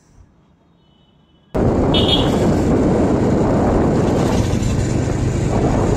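Loud, steady rush of wind buffeting the microphone, mixed with road noise, as when riding in an open vehicle; it cuts in suddenly about a second and a half in. A brief high tone sounds about two seconds in.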